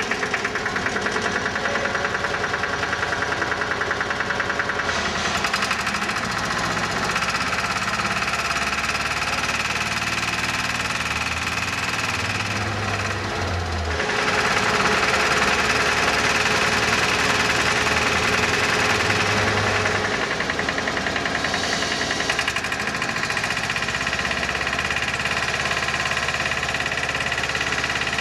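A 7.5 kW diesel engine runs continuously while it drives a paddle-blade centrifugal fan through a centrifugal clutch. Its sound shifts several times, and it steps up and grows louder about halfway through.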